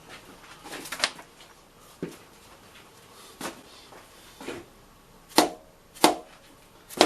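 Hard metal parts being handled and set down: about seven separate knocks and clanks, the last three loudest, each with a short metallic ring.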